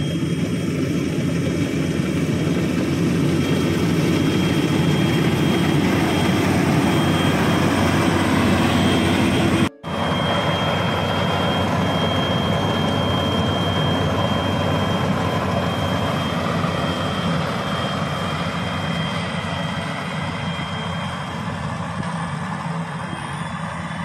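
Maxxi Bimo rice combine harvester running steadily under load while it cuts and threshes rice, with a dense low engine and machinery drone. The sound breaks off for a split second just before ten seconds in, then resumes with a thin steady high whine over the drone. It grows fainter over the last several seconds as the machine moves away.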